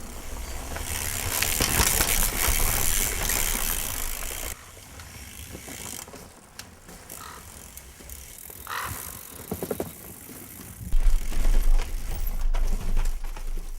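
Mountain bike on a trail: a loud rushing of tyres and riding noise that cuts off sharply about four and a half seconds in, then quieter clicking and rattling from the bike's drivetrain and freewheel, and a loud low rumble near the end.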